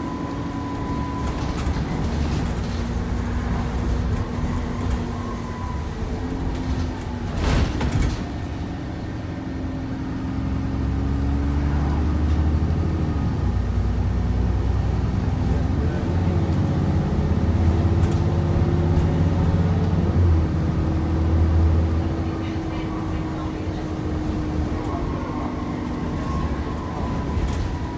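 Alexander Dennis Enviro400 double-decker bus heard from inside the lower deck, its diesel engine and drivetrain droning, with a heavier low rumble through the middle as it pulls and gets up to speed. A high whine rises, holds and falls away over that stretch. There is a single sharp knock about seven and a half seconds in.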